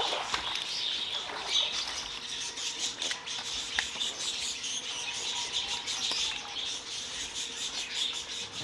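Live catfish thrashing in a wet mesh net, a rapid patter of small wet slaps and clicks, over a steady high-pitched hiss.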